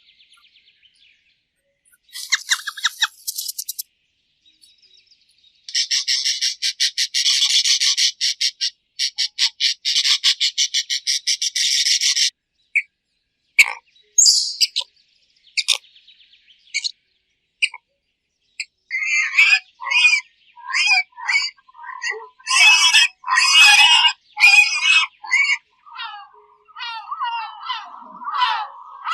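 A series of separate animal calls with quiet gaps between them. A rapid, high buzzing trill lasts several seconds, and later a busy run of short chirping, bird-like calls comes near the end.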